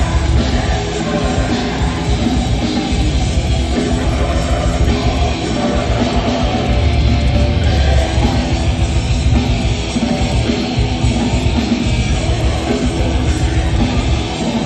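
Grindcore band playing live: loud distorted guitars over fast, dense drumming with a heavy low end, unbroken throughout.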